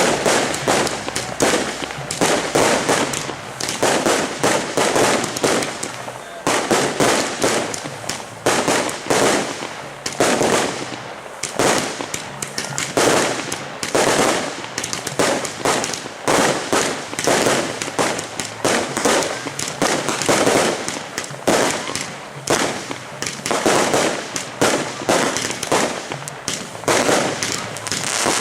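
Aerial fireworks display: a continuous rapid run of bangs from firework batteries, about one to two strong bursts a second with crackling between them.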